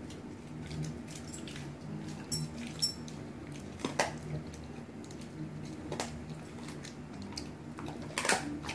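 Rhodesian Ridgeback chewing raw pork baby back ribs: wet, squishy chewing broken by irregular sharp cracks of bone, the loudest about four seconds in and near the end.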